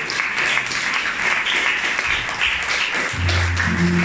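Audience applauding, with music coming in over the clapping: low, held bass notes start about three seconds in.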